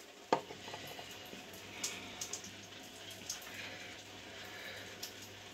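Quiet wet sounds of hands working hair conditioner through wet hair, with a sharp click just after the start and a few light ticks.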